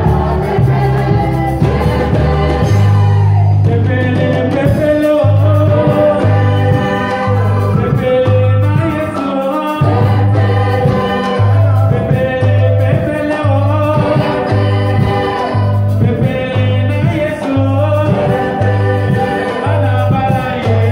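Gospel worship singing: several men's and women's voices sing together through microphones over a bass line that pulses about once a second.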